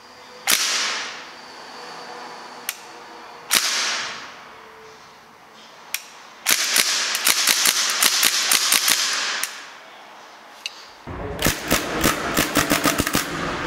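Northeast Sten MK5 gas blowback airsoft gun firing: two single shots a few seconds apart, then two rapid strings of sharp shots.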